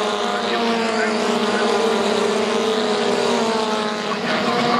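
A pack of Formula Ford single-seater racing cars running at high revs, several engine notes overlapping and sliding gently down in pitch.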